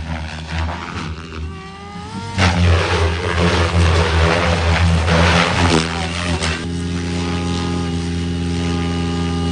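Goblin Raw 700 electric RC helicopter flying, its Xnova motor whining and rotor blades beating. The whine rises in pitch about two seconds in, then loud blade noise swells for about four seconds before settling into a steady whine near the end.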